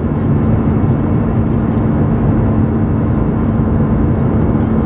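Airbus A320 cabin noise in flight, heard from a window seat over the wing: a steady rumble of engine and airflow with a constant low hum.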